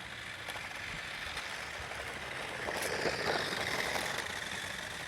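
Electric motors of RC toy cars whining as they race, over the hiss of their wheels on the ground; the whine swells louder around the middle.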